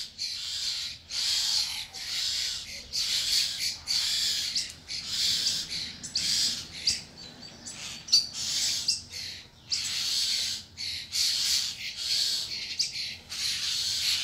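Many birds giving harsh, chattering calls over and over, in bursts of about half a second to a second with hardly a break: agitated calling from birds gathered around two birds fighting.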